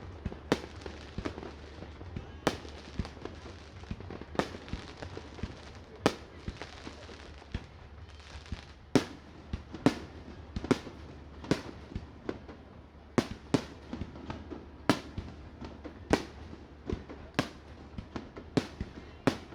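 Fireworks display: a string of sharp bangs from shells bursting, at irregular spacing of about one or two a second.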